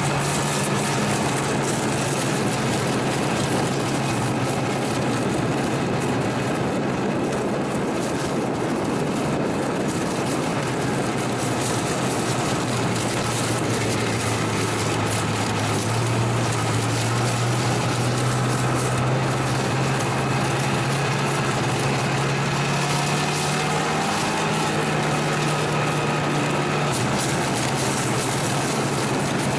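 Snowmobile engine and track running steadily at trail speed, close up. The engine note eases a little lower and then climbs back as the throttle changes.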